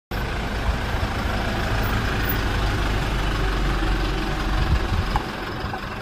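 A vehicle engine idling with a steady low rumble, a little quieter from about five seconds in.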